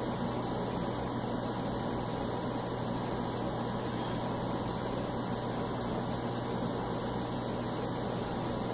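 Steady background hiss with a low, even hum and no distinct sounds: room tone.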